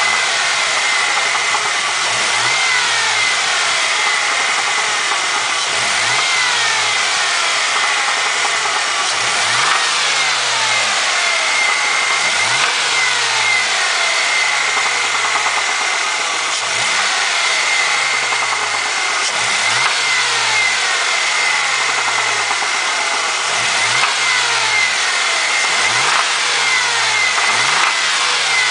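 2003 Ford Mustang engine being blipped over and over, about every three or four seconds: each time the revs rise quickly and sink slowly back to idle, with a steady high whine underneath. The owner takes the engine noise for piston slap and rod knock.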